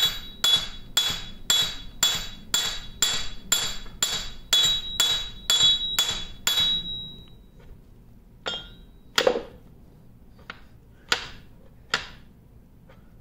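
Light hammer taps driving a steel shaft slowly out through a lathe apron, each strike ringing metallically. The taps come about two a second at first, then after about seven seconds thin out to a few slower, spaced taps.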